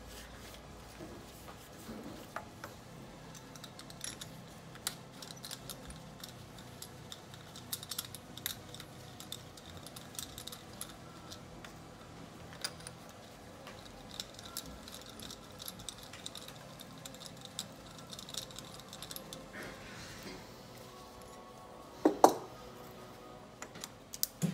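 Scattered small metallic clicks and clinks of hand tools and a compression-tester hose fitting being handled at a diesel engine's cylinder head, with a louder knock about 22 seconds in.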